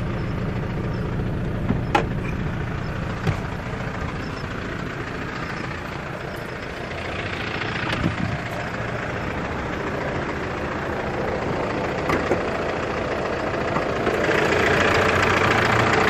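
Kia Carnival's 2.9-litre diesel engine idling. It has a newly fitted clutch disc, pressure plate, release bearing and flywheel, and the internal noise once blamed on the gearbox is now gone. A few sharp clicks and knocks sound over it, and about fourteen seconds in the engine noise grows louder.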